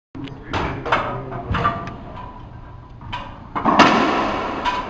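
Racquetball ball and racquet impacts echoing around an enclosed court: a series of sharp hits and bounces, the loudest about four seconds in, each followed by the court's ringing reverberation.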